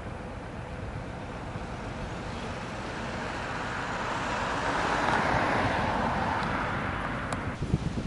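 A vehicle passing by: a rush of road noise that swells to a peak about five seconds in and then fades. Near the end it cuts abruptly to gusty wind buffeting the microphone.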